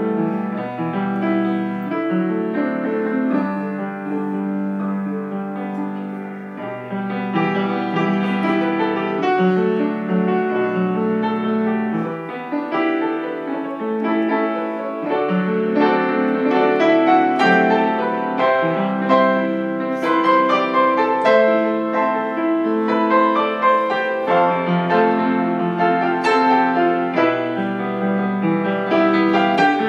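Solo piano playing a melody over low bass notes, growing louder about halfway through.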